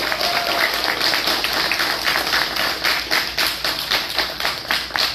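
A small group of people, about a dozen, applauding: many hands clapping quickly and out of step, thinning a little near the end.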